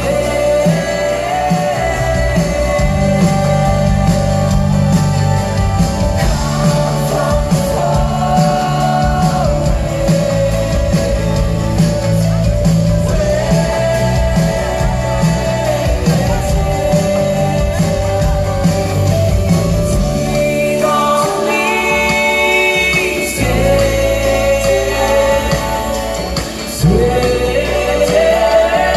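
Live pop-rock concert heard from the audience: a male lead singer sings with a full band of bass, drums and guitars. Around two-thirds of the way through, the heavy bass and drums drop away under the voice, then return with a jump in loudness near the end as the voice slides up.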